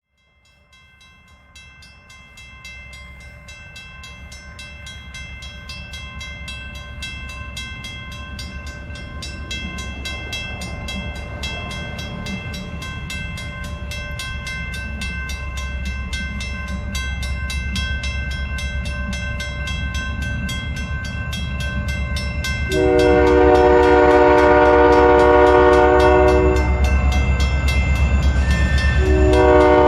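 Approaching diesel freight train: a low locomotive rumble fades in and grows steadily louder as it nears. About 23 seconds in the locomotive's horn sounds one long, loud blast, and a second blast starts near the end.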